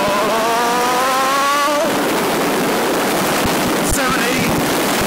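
Yamaha YBR125's single-cylinder engine revving up steadily under acceleration, its pitch rising for about two seconds before dropping away, with a brief dip and rise in engine note near the end, all over a constant rush of riding wind on the microphone.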